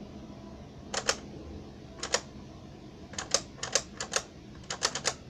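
A run of sharp plastic clicks, mostly in quick pairs, starting about a second in and coming more often toward the end: a small Nerf-style toy blaster being handled and worked.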